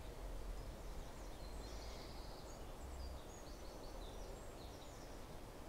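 Faint garden ambience: small birds chirping and twittering in quick short notes, over a steady low rumble.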